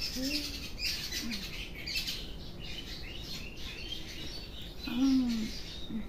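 Hair-cracking head massage: strands of hair are tugged and twisted at the scalp, giving small crackling snaps. The woman whose hair is pulled makes short pained vocal sounds near the start and again about five seconds in. Birds chirp in the background.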